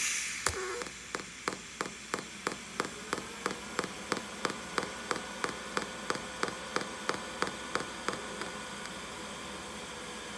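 Pulsed TIG welding arc on thin sheet steel, struck with a sharp crackle, then buzzing steadily with a sharp tick on each current pulse, three pulses a second. The pulses stop about eight seconds in, leaving a steady electrical hum.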